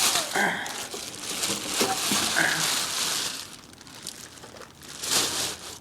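Crinkling and rustling as things are handled and moved about, coming in bursts for the first few seconds, then one last short burst near the end.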